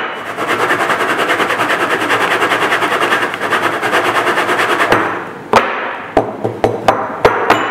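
Plastic chocolate mould full of melted dark chocolate being rattled fast against a tabletop for about five seconds, then tapped down in a string of separate sharp knocks. The tapping spreads the chocolate level in the mould and knocks out air bubbles.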